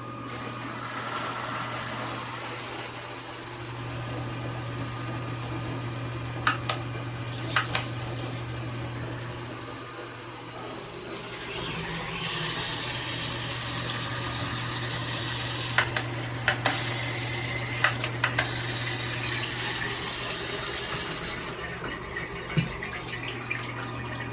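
Water spraying from a handheld shower head, a steady hiss that grows louder about halfway through. A steady low hum runs underneath, and a few sharp clicks or knocks stand out.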